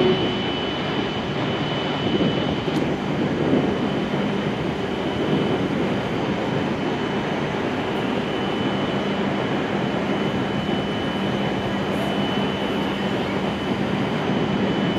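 Steady hum and hiss of a W7 series shinkansen standing at the platform with its on-board equipment running, a thin high steady tone over it.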